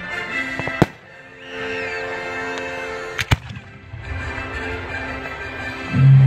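Firework shells bursting with sharp bangs: one about a second in, two in quick succession past the three-second mark, and a loud one at the very end. Music with sustained tones plays underneath.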